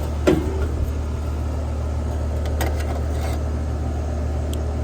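Air-conditioner condensing unit running steadily with a low hum, its compressor having started on a newly fitted capacitor and drawing a normal running current of about 9 amps.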